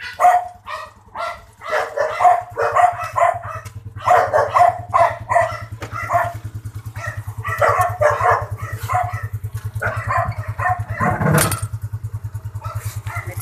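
Motorcycle engine of a tricycle running at idle, a steady low putter, while a dog barks over it in repeated short bursts for most of the time. About eleven seconds in there is a single louder burst of noise.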